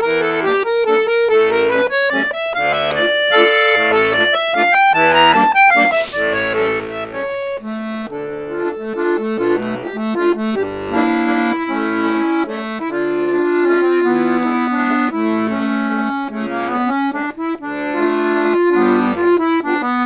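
Bayan (Russian button accordion) improvising: quick rising and falling runs of melody over bass notes, then slower held chords over a moving bass from about eight seconds in. The phrases are being tried out while composing a new piece.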